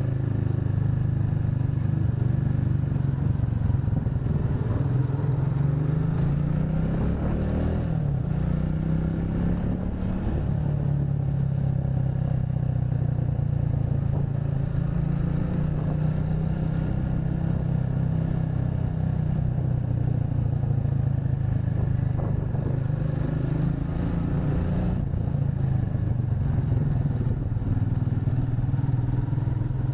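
Motorcycle engine running steadily while riding, with road and wind noise. Its pitch climbs about seven to nine seconds in and drops back near ten seconds, as the throttle is opened and a gear is changed.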